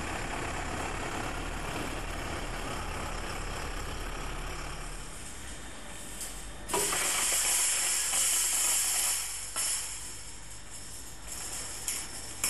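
A MAN lorry's diesel engine idling, then a loud hiss of air starting suddenly about seven seconds in and lasting about three seconds, followed by a few shorter hisses.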